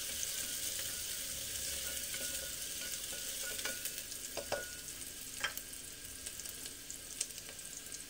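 Chopped onion frying in oil in an aluminium pressure cooker over a high gas flame: a steady sizzle as the onion browns. A few sharp clicks and scrapes of a spoon against the pot come in the middle as it is stirred, and the sizzle eases a little toward the end.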